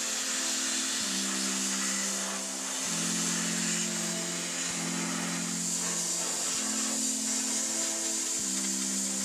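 Steam cleaner nozzle hissing steadily as it is worked over the car's grille and wheel, with background music of sustained chords that change every couple of seconds.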